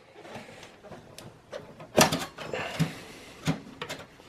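Clicks and light knocks of a desktop computer's video card being unlatched from its slot's blue plastic retention clip and pulled out of the case. The sharpest click comes about two seconds in, with smaller ones before and after.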